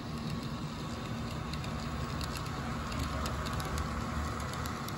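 HO scale Norfolk Southern SD70M model locomotives running along the track, a steady motor hum and rumble of wheels on rail with scattered light clicks that grow more frequent after about a second and a half.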